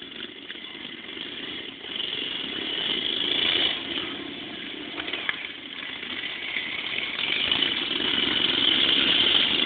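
Racing lawn mower engines running on a dirt track, getting louder and fading as the mowers pass: one swell a few seconds in, then a longer build toward the end.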